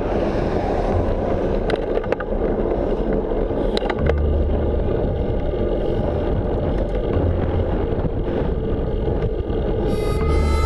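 Road bike climbing: steady rumble of tyres rolling on the road and wind buffeting a stem-mounted action camera, with a few light clicks. Music comes in near the end.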